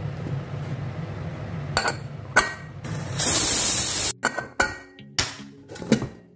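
Pressure cooker letting off steam in a loud hiss lasting about a second, partway through, among sharp metallic clinks of the lid and pressure weight being handled. Background music runs underneath.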